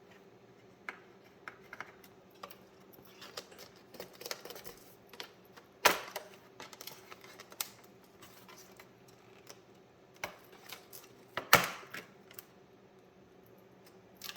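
A Phillips screwdriver removing the small screws from a laptop's bottom cover: scattered light clicks and taps of metal on screw heads and plastic casing. Two louder clacks come about six and eleven seconds in.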